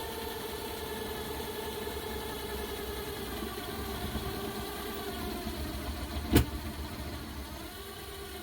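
Power drill running steadily while drilling holes in tile, its motor whine sagging slightly in pitch as it loads up. One sharp click sounds about six seconds in.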